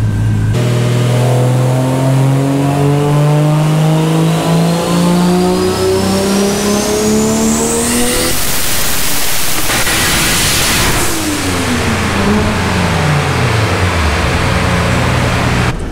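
Turbocharged Toyota 1JZ straight-six making a full-throttle pull on a chassis dyno. The revs climb steadily for about eight seconds with a rising whine over the exhaust. Near the top the engine breaks up roughly for a few seconds as it hits the boost cut, then the revs fall back to idle.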